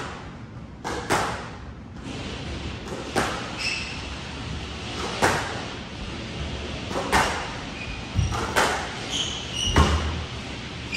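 Squash rally: the ball is struck by rackets and smacks off the court walls, a sharp echoing crack every second or two, some in quick pairs, with short squeaks of court shoes on the wooden floor between shots.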